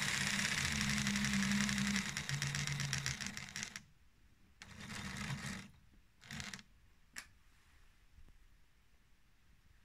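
Lego 12 V train locomotive's electric motor and gearing running on a test bench with a steady whir, stopping about four seconds in. It is switched on again briefly twice, for about a second and then half a second, followed by a short click.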